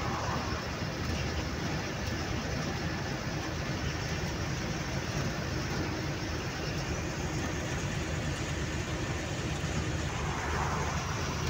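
Truck driving at speed on a highway, heard from the cab: a steady low engine drone with tyre and wind noise, and a brief swell of hiss near the end.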